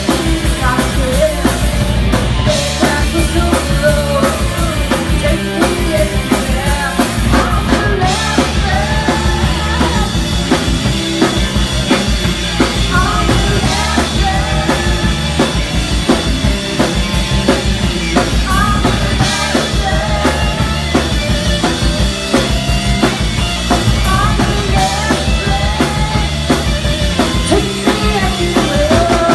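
Live rock band playing: electric guitar, bass guitar and drum kit, with a woman singing into a microphone.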